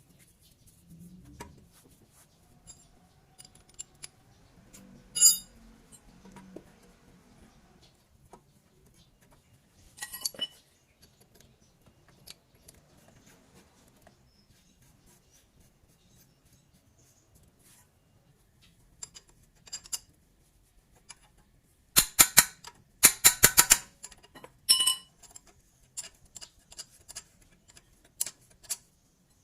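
Scattered sharp metallic clicks and light clanks from hand tools on car brake parts, with a run of rapid clicking about three quarters of the way through.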